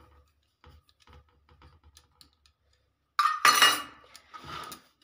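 Clinking as flour is mixed by hand on a steel plate, with bangles and a steel spoon knocking against the plate. Faint ticks are followed by a loud jangle of clinks about three seconds in and a shorter one a second later.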